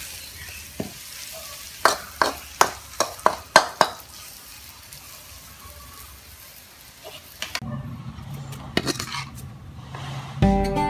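Metal ladle scraping and clanking against a wok of sizzling sweet corn stir-fry, with a string of sharp scrapes in the first few seconds and then steady sizzling. The sizzling cuts off about seven and a half seconds in; a few light clicks follow, and acoustic guitar music starts near the end.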